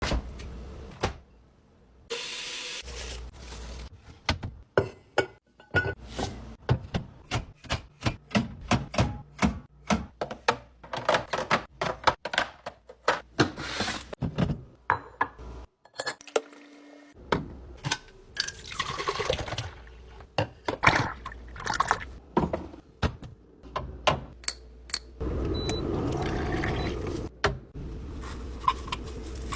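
Fridge-restocking sounds: a long run of clicks and knocks as containers and jars are handled, set down and closed, with stretches of liquid being poured.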